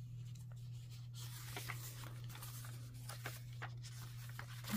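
Paper pages of a handmade junk journal being handled and turned: faint rustles and soft taps, over a steady low hum.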